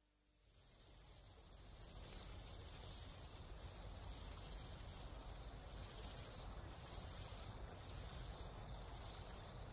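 Crickets chirping in a steady high trill, with short chirps repeating about four times a second. It fades in just after the start.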